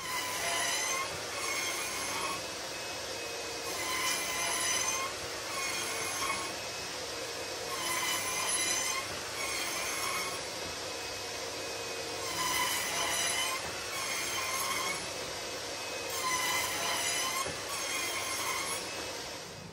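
Plunge router running on a slab-flattening jig, its high motor whine swelling and bending in pitch about every two seconds as the bit cuts across an oak slab, over a steady rush of cutting noise.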